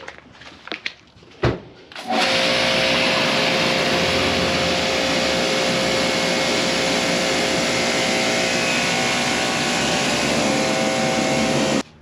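A couple of sharp knocks, then a loud, steady motor-driven machine starts abruptly about two seconds in, runs evenly with a steady hum in it, and cuts off suddenly near the end.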